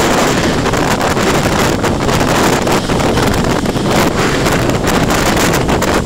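Strong wind buffeting the microphone in a loud, constant rush, over rough sea with storm waves breaking against a seawall.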